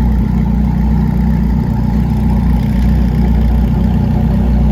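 Koenigsegg Jesko's twin-turbo V8 idling steadily at the roadside, with an even, low rumble and no revving.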